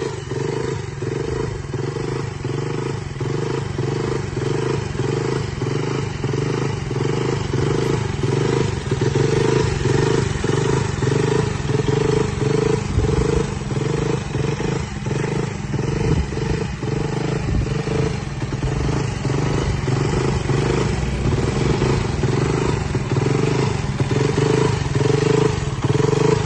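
KTM Duke 200's single-cylinder engine running steadily without revving, with a regular pulsing beat about one and a half times a second. This is the abnormal noise the owner presents as a problem with the bike.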